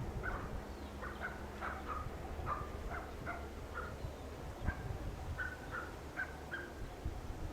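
Birds calling in short repeated notes, several a second, over wind buffeting the microphone in a strong wind.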